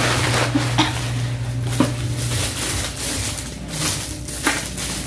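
Bubble wrap and plastic packaging rustling and crinkling as it is handled and pulled off a plastic tumbler, with irregular crackles. A steady low hum runs underneath and drops out about halfway through.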